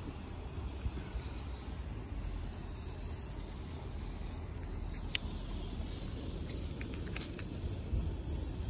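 Wind buffeting the microphone outdoors: a steady low rumble, with a few light clicks about five and seven seconds in.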